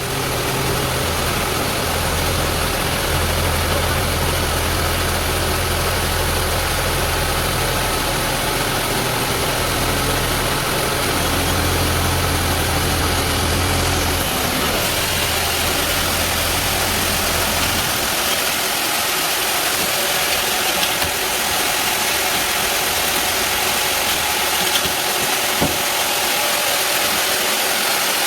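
Sawmill bandsaw machinery running steadily with a dense mechanical drone. A deep low hum under it stops about two-thirds of the way through, while the rest of the machine noise carries on.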